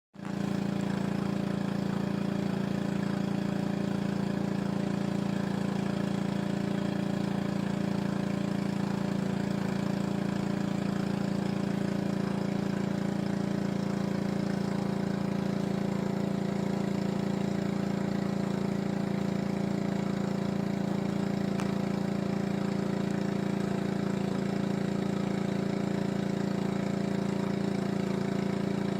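Pressure washer's small petrol engine running at a steady speed, an unchanging drone.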